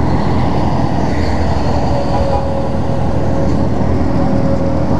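Sport motorcycle engines idling together, a steady low running sound, with road traffic passing.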